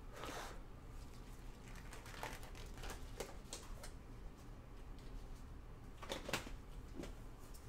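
Faint handling noises: scattered light knocks and rustles, with one louder knock about six seconds in.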